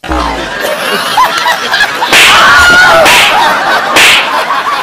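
Three sharp whip-like swishes, about a second apart from about two seconds in, over excited voices and laughter. They sound like comedy sound effects added in the edit.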